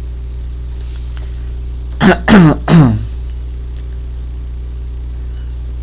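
A man clearing his throat: three short bursts, each falling in pitch, about two seconds in, over a steady electrical hum.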